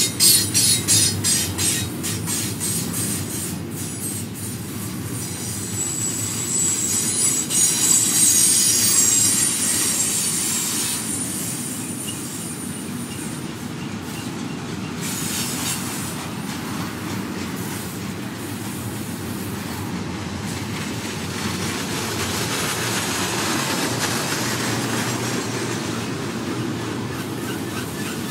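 Double-stack container well cars of an intermodal freight train rolling past: a steady low rumble of steel wheels on rail. A rapid, regular clatter of wheels runs through the first few seconds, and a high-pitched wheel squeal rises from about six to ten seconds in.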